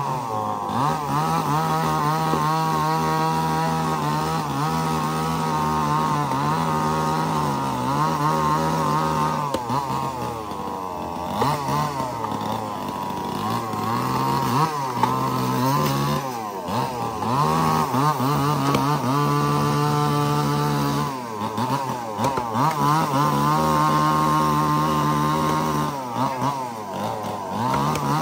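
Two-stroke chainsaw running continuously while cutting logs, its engine pitch repeatedly dropping and climbing back up.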